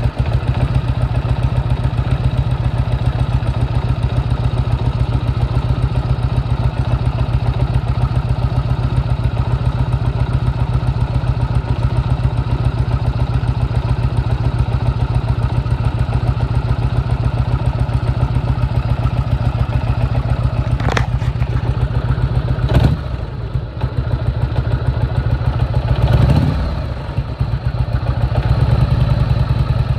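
1998 Harley-Davidson Road King's V-twin engine running at a steady idle, with two sharp clicks about two-thirds through and a short rev soon after. The bike had a knocking noise caused by a loose primary-side compensator nut.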